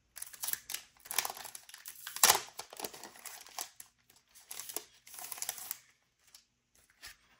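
Crinkly plastic wrapping being torn open and pulled off a paper notebook refill pack, crackling irregularly, with one sharper crackle a little over two seconds in; it stops about six seconds in.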